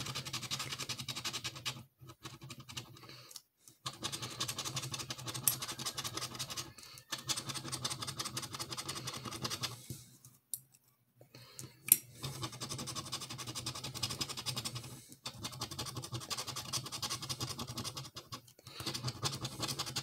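Lottery scratch-off ticket being scratched with a small metal tool, the edge scraping the latex coating off the card in quick continuous strokes. Short pauses break the scratching, with a longer one about ten seconds in and a sharp tick just after it.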